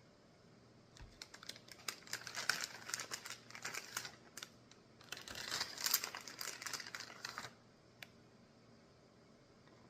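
Temptations cat treats clicking and rattling in two bursts of a few seconds each, with one last click about eight seconds in.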